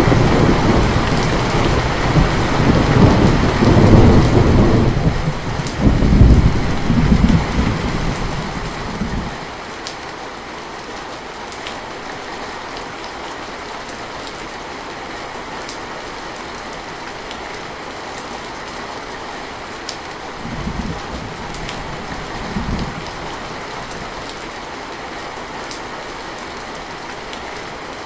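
Steady rain with a long roll of thunder that fades out about a third of the way through, leaving the rain alone; two short, fainter rumbles of thunder come later.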